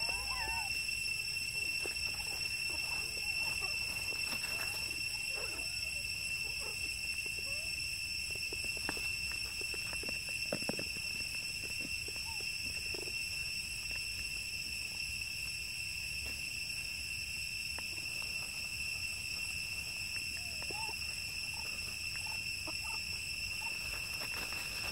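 Young macaques giving short, soft squeaks now and then over a steady high-pitched insect drone, with occasional crackles of dry leaves as they move.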